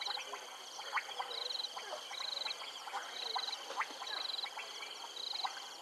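Frogs calling in chorus: a short, high trilled call repeats about once a second over many scattered clicking calls.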